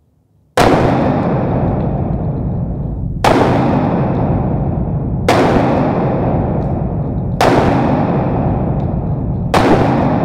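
Loud music with heavy drum-like hits, one about every two seconds, over a steady full sound that never dies down between them. It starts abruptly about half a second in.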